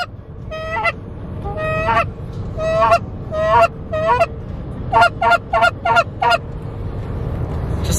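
Handheld goose call blown in a string of short honks that break up in pitch, then a quicker run of about six near the end, imitating geese. Steady road rumble inside a moving car's cabin underneath.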